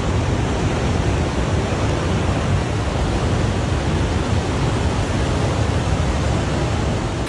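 Steady, loud rushing noise with a heavy low rumble, cutting off abruptly at the end.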